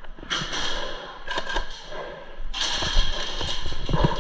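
Footfalls and gear rustling of an airsoft player on the move: scattered low thuds with several stretches of hissy scuffing, the longest near the end.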